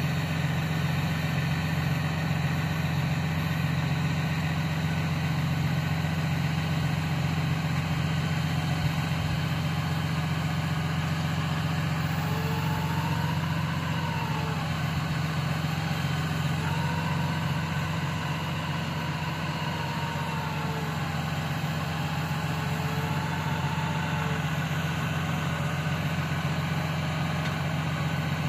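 2011 Dodge Ram 5500 bucket truck's engine idling steadily while the Altec AT37G boom is worked. Through the middle there is a faint whine that rises and falls in pitch as the boom moves.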